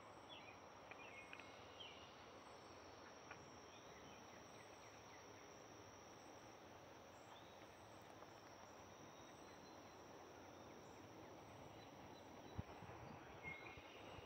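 Near silence: faint summer garden ambience with a steady high-pitched insect drone, a few faint chirps, and a couple of soft thumps near the end.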